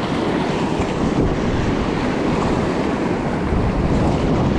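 Salmon River whitewater at high flow rushing steadily around a paddle raft, with wind buffeting the microphone.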